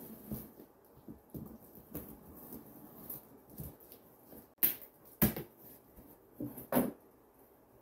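Cardboard shipping box being opened by hand: light scraping and rustling at the taped seam, then three sharp cracks as the flaps are pulled free, the first about halfway through.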